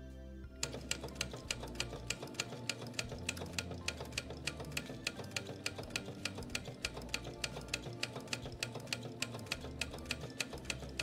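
Pick-stitch (hand-stitch imitation) sewing machine stitching denim: a steady, even run of sharp clicks that starts about half a second in. The machine runs slowly even at its top speed.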